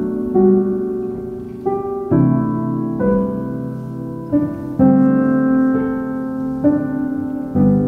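Background music: a slow piano piece, chords struck about once a second and fading between them.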